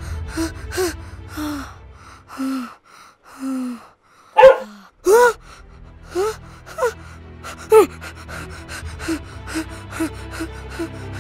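Tense background music with a ticking beat, about three ticks a second, over a child's frightened gasps and short cries. The loudest two come about four and a half to five seconds in.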